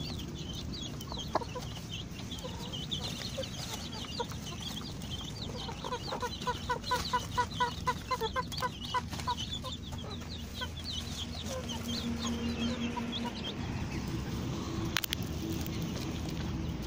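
Chickens calling: many short high peeps throughout, with one bird clucking in a quick, even run of a dozen or so calls for a few seconds in the middle.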